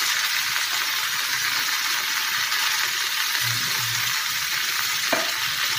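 Cubes of raw plantain frying in oil in a kadai, a steady sizzle, with one short click about five seconds in.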